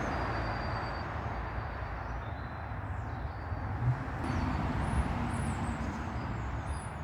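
Steady hum of road traffic, with a few faint bird chirps.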